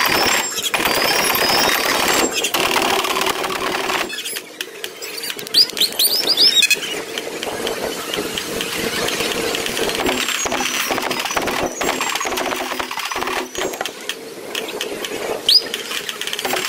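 Parade street noise: a marching drum corps playing at first, then engine noise from slow parade vehicles, with a cluster of short rising squeals about six seconds in and another near the end.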